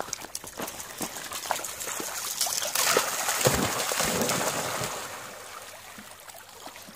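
Dogs splashing through shallow lake water as one bounds out from the shore. The splashing builds, is loudest about three to four seconds in, then fades as the dog swims off.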